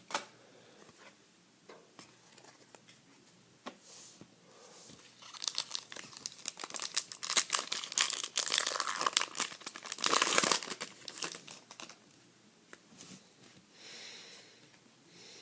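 Foil wrapper of a trading-card pack crinkling and tearing as it is opened and handled, densest from about five to eleven seconds in, with scattered light clicks before it.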